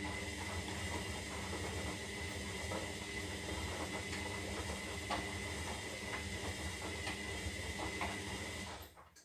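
Zanussi Lindo 300 washing machine running mid-cycle: a steady hum with a thin high whine over a hiss of water, a few light clicks, cutting off abruptly near the end.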